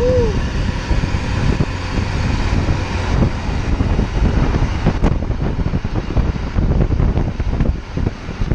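Wind buffeting the microphone of a camera on a moving bicycle, over the rumble of passing road traffic. A brief high tone rises and falls right at the start, and a single sharp knock comes about five seconds in.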